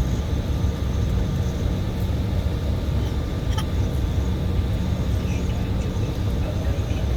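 Steady low rumble of an airliner heard from inside the cabin, jet engines and cabin air running evenly, with a thin steady whine above it.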